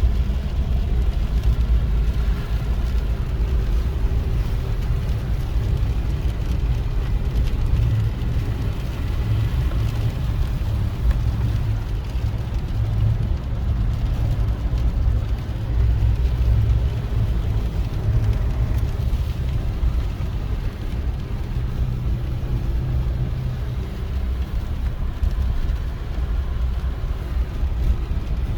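Mitsubishi Pajero iO driving along, heard from inside: a steady low engine and road rumble.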